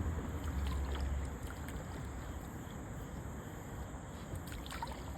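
A kayak on the river: faint water splashing and lapping from the paddle and hull, with a deep wind rumble on the microphone for the first second or so and a few light splashes near the end.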